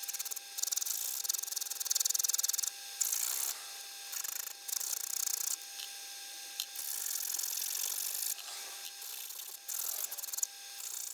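Small hand file rasping on a titanium watch-bracelet clasp part in a series of strokes, some short and some a second or two long. The part is being filed down to fit a gap that is too narrow.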